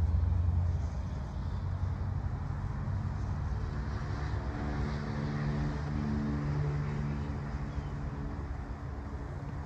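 Steady low engine rumble, louder in the first second. About four seconds in, a humming engine note with several pitches comes in over it and fades out near the end.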